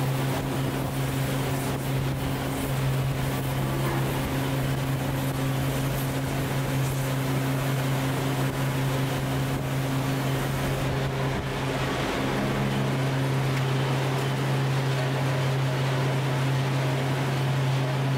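Steady hum and rumble of forging-shop machinery: a low, even drone with broad noise over it and no distinct hammer or press strikes standing out.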